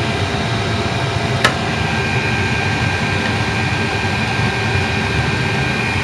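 8 kW diesel air heater running at its maximum setting: a steady rumble of its burner and blower, with a faint high whine that joins about two seconds in. A single sharp click about a second and a half in.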